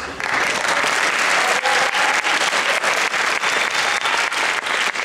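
Audience applauding, a dense clatter of many hands clapping at once.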